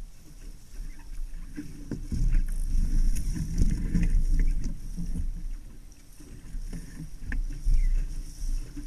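Water rushing and splashing against the hull of a Laser sailing dinghy under way in choppy water, over a low rumble. It swells from about two seconds in to past the middle, and again near the end.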